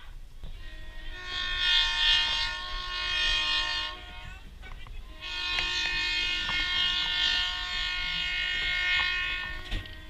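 The train's locomotive sounding two long blasts on its multi-note horn or whistle chord, each held steady for several seconds, with a short gap between them. The second blast is the longer. Both come over the low rumble of the moving train.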